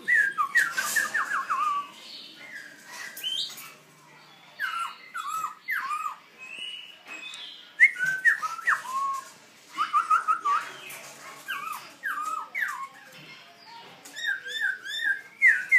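A young black-throated laughingthrush singing: short whistled notes, many sliding down or hooked, given in quick runs broken by pauses. This is the halting practice song of a young bird learning to sing.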